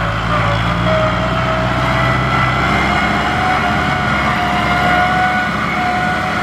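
Heavy farm machinery engine running, with a high whine that climbs in pitch in small steps. A low engine hum drops away a little under three seconds in.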